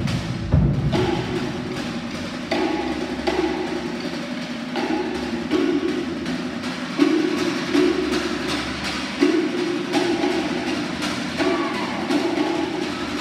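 Cook Islands drumming: rapid, steady strikes on wooden slit log drums (pate), with a lower sustained note coming back in pairs every couple of seconds.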